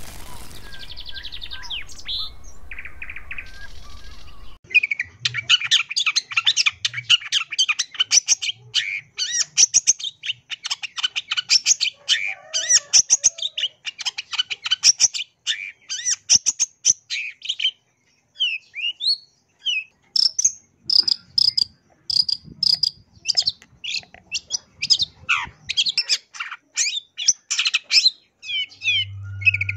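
Long-tailed shrike (cendet) singing a rapid, chattering song of high, fast-repeated notes broken by short pauses, packed with mimicked phrases (full isian). The song starts about four and a half seconds in, after a quieter stretch.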